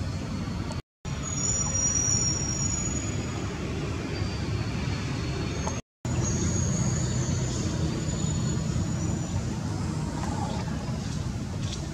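Steady low rumble of outdoor background noise, with thin high whistles above it. It cuts out completely for a moment twice, about one second in and about six seconds in.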